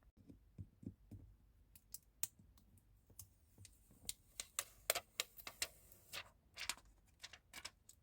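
Small repair tools clicking and tapping against the parts of an iPhone XS Max as they are moved to a new screen: irregular light clicks, a few duller taps at first, then a denser run of sharper clicks from about two seconds in.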